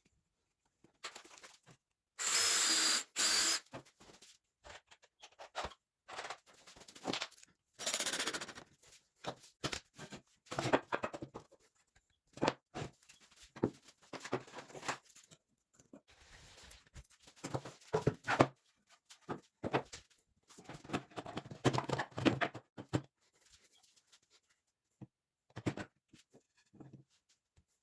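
Workshop tool work in short bursts separated by silences: a power tool runs briefly about two seconds in, the loudest event, with a steady high whine, followed by many shorter runs and handling, rubbing and knocking sounds.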